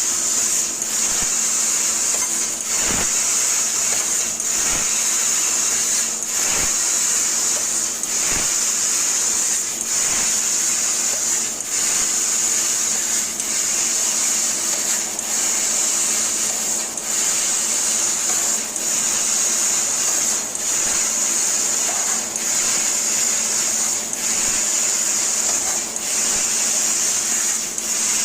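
Laser cutting machine cutting a jali pattern in 1.6 mm stainless steel sheet: a steady high hiss over a constant hum, broken by brief dips and clicks every second or two.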